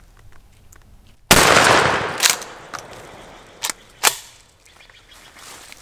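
A single shotgun blast about a second in, echoing and dying away over about a second, followed by a few short sharp knocks.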